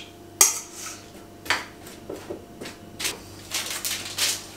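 Metal spoon clinking and scraping against a stainless steel mixing bowl while seasoned potato pieces are scooped out: a string of short, irregular knocks. A faint steady hum runs underneath.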